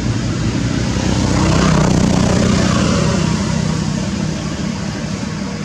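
A motor engine humming steadily, growing louder about two seconds in and then fading, as a passing vehicle does.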